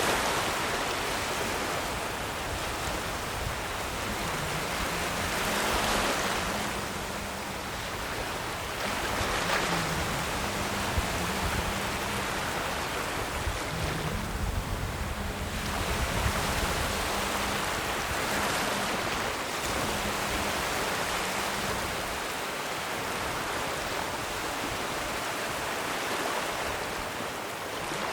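Ocean waves breaking and washing ashore, a steady rushing surf that swells with each wave every few seconds.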